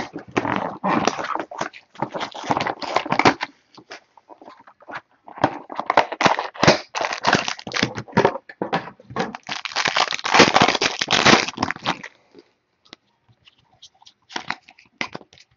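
A trading-card box is opened and its silver foil pack wrapper torn and crinkled: dense crackling in two spells, the longer one in the middle. Near the end there are a few light clicks and rustles as the cards are handled out of the pack.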